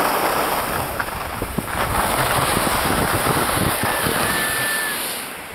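Wind rushing over the microphone and skis scraping over groomed snow on a downhill run, a steady hiss with low rumbling buffets.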